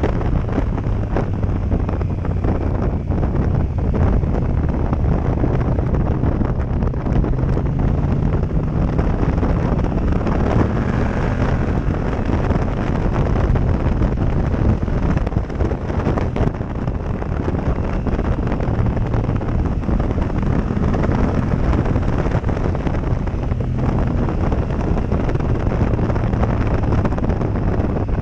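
Heavy wind buffeting on a helmet-mounted action-camera mic while riding, over the motorcycle's Yamaha MT-07 parallel-twin engine running underneath, its revs rising and falling through the corners.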